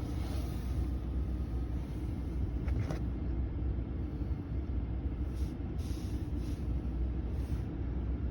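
Steady low rumble in the cab of a 2019 Ram 1500, with the engine running and the HVAC blower moving air through the vents.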